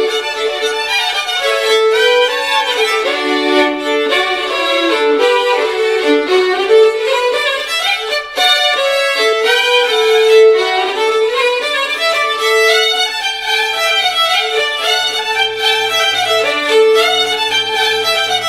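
Instrumental Occitan folk tune: a quick violin melody over a steady drone, with a low bass line joining about fourteen seconds in.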